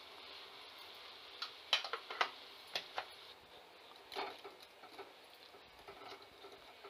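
Steel spoon clicking against a steel pot of hot water as salt is stirred in, then soya chunks tipped in by hand: a string of light clicks and taps over a faint steady hiss.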